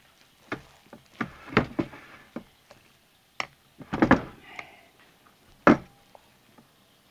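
Wooden spoon knocking against the ceramic crock-pot insert while working thick, cooked hot-process lard soap. About eight irregular knocks with some scraping between them; the loudest come about four seconds in and just before six seconds.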